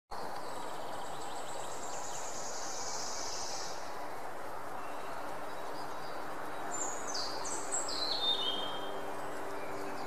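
Bird calls over a steady outdoor hiss: a high buzzing trill for the first four seconds or so, then, about seven seconds in, a short run of high notes stepping down in pitch.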